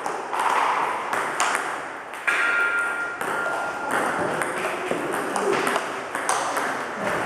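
Table tennis multiball drill: balls are fed in quick succession from the feeder's bat, bounce on the table and are struck back by the player's bat. The result is a rapid, irregular run of sharp ball-on-bat and ball-on-table ticks, several a second.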